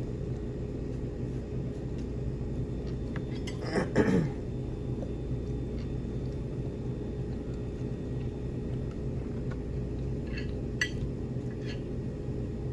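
Cutlery and dishes clinking now and then during a meal over a steady low room hum, with a louder clink about four seconds in and a few quick clicks near the end.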